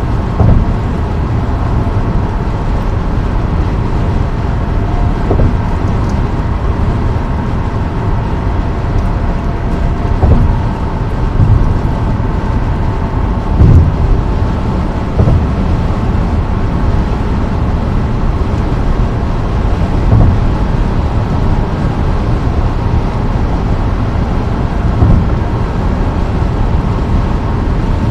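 Tyre and road noise of a car at highway speed on the bridge's concrete pavement, heard from inside the cabin as a steady rumble. A low thump comes about every five seconds, with a couple of extra ones between.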